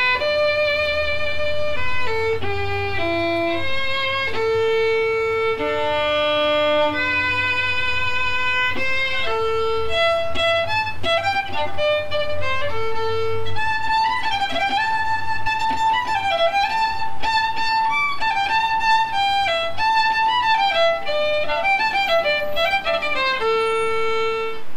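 Solo violin playing a melody: long held notes at first, then from about ten seconds in quicker runs of notes with vibrato, ending on a held note.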